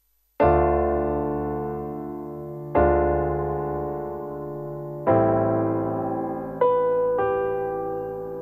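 Electric piano playing slow chords, each struck and left to ring and fade: three about two and a half seconds apart, then two quicker ones near the end.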